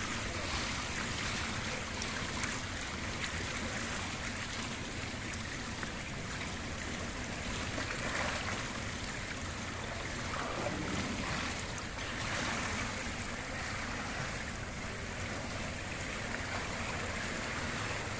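Steady wash of water noise echoing in an indoor swimming pool hall, with light splashing from a sea kayak and its wooden Greenland paddle as the kayaker leans over and capsizes to practise a Greenland roll.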